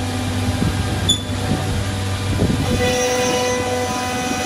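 Holztek D2400-CNC lock and hinge boring machine running: steady machine noise with a held whine, growing rougher in the middle as it works the panel.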